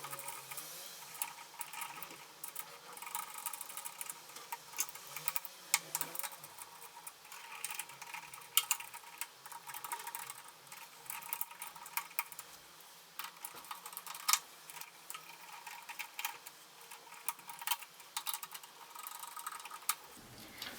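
Irregular small plastic clicks and handling noises as clip-on current sensors are snapped onto wires in an electrical panel.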